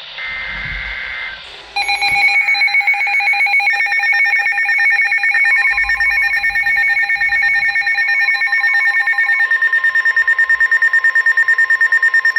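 Emergency Alert System alert on a NOAA weather radio, announcing a flash flood warning. It opens with a short burst of the warbling SAME digital header screech. About two seconds in, a rapidly pulsing alert alarm starts in several pitches at once. Near the end some of those pitches drop out and a pulsing two-tone alarm continues.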